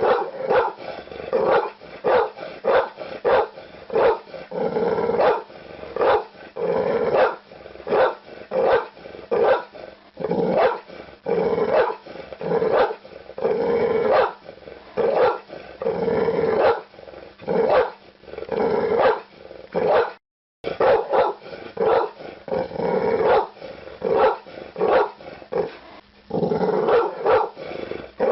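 Pit bull barking over and over, about two barks a second. The sound cuts out for a split second about two-thirds of the way through.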